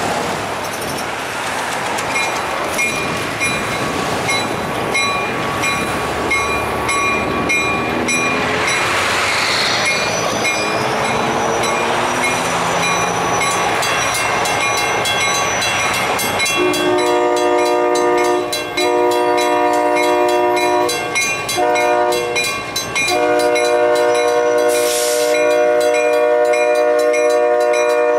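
Road vehicles pass over a grade crossing while the crossing bell rings with a steady fast ticking. About 17 seconds in, an approaching diesel freight locomotive's multi-note air horn sounds the standard grade-crossing signal: long, long, short, long, the last blast held until the end.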